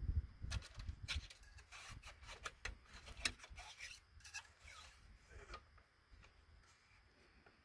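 Faint crunching and scraping of grit and loose gravel underfoot and under the fat-tire bike's tyre on a dirt trail. It is a scatter of short scratches, thickest in the first few seconds and dying down after about six seconds.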